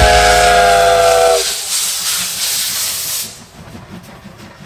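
Steam whistle of the C57 steam locomotive sounding a sustained several-toned blast that cuts off about a second and a half in, its pitch sagging slightly as it closes. Loud steam hissing follows for about two seconds, then fades away.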